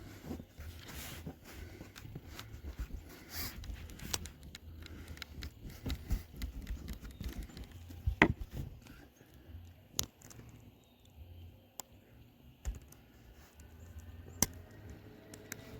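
Irregular clicks, taps and knocks of hand work with tools and small hardware, over a low rumble, with one sharper knock about eight seconds in.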